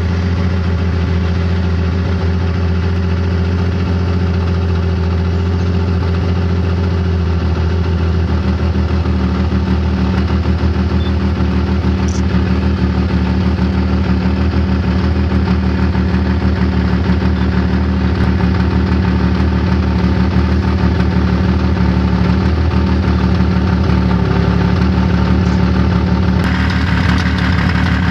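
Snowmobile engine running steadily at an even pitch, heard from on board the moving machine. Near the end the sound changes and becomes brighter and hissier.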